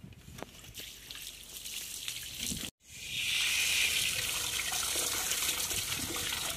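A garden tap is turned, then about three seconds in water from a garden hose pours steadily into an open PVC drain pipe, a test of whether the drain is still blocked.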